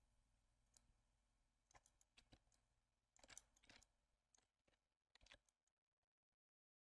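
Near silence with faint, scattered clicks from computer mouse and keyboard use, a few short ones at a time. The sound drops to dead silence about six seconds in.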